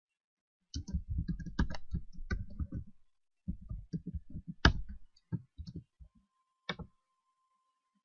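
Typing on a computer keyboard: two quick runs of key clicks with a short pause between them, one louder click in the second run, and a single click near the end.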